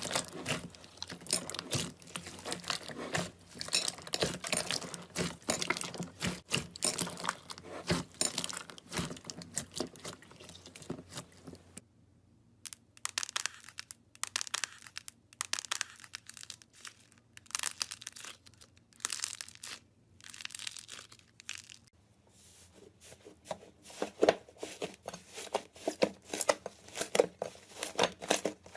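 Slime being squeezed and stretched by hand, making a dense run of crackling, popping clicks. Partway through, the clicks thin to a few scattered pops, then grow dense again near the end.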